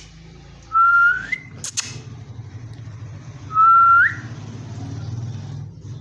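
Indian ringneck parakeet whistling: two loud whistles about three seconds apart, each a held note that sweeps upward at the end, with a single sharp click between them.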